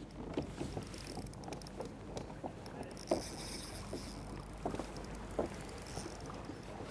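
Water lapping and slapping against a fishing kayak's hull, with irregular light knocks and splashes.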